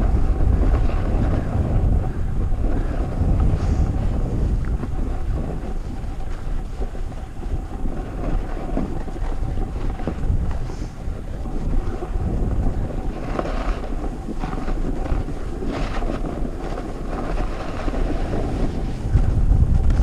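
Wind buffeting the microphone of a camera carried by a rider sliding down a groomed snow track, a steady low rush, with the scrape of edges on the snow several times in the second half.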